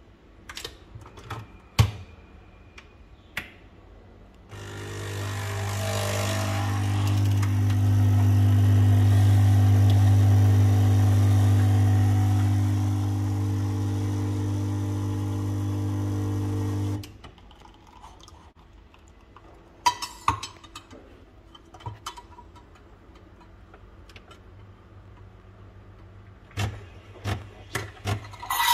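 Nespresso Creatista Plus capsule machine brewing an espresso shot: its pump runs with a steady low hum for about twelve seconds, building up over the first few seconds, then cuts off suddenly. A few sharp clicks come before it as the capsule is loaded, and scattered light clicks and knocks after it.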